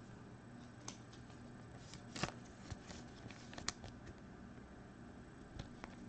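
2020 Bowman Chrome baseball cards being handled and slid off one another: scattered soft clicks and one short scraping rustle about two seconds in, over a faint steady hum.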